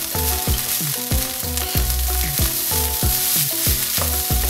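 Basmati lemon rice stirred and tossed with a wooden spatula in a wok, with a steady frying hiss. Under it, background music with a regular beat of low drum hits and held synth notes.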